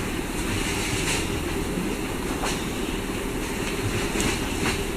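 A steady low rumble of background noise with a few faint clicks.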